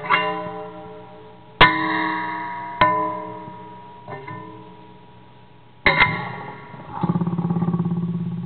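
Homemade metal noise box: its long steel wires are struck with a pencil about five times, each strike giving a sudden metallic twang that rings with several tones and slowly dies away. In the last second or so a fast fluttering, wavering buzz takes over as a hand works the box.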